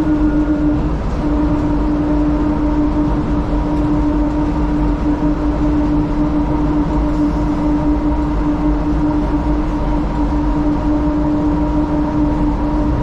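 DFW Skylink automated people mover (Bombardier Innovia APM 200, rubber-tyred) running at speed along its elevated concrete guideway, heard from inside the car. A steady rumble runs under a constant whine.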